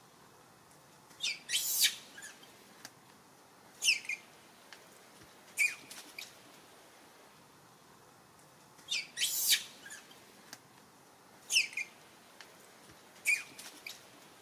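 Short, high-pitched animal squeaks, each falling quickly in pitch, coming in small groups a few seconds apart over a quiet background.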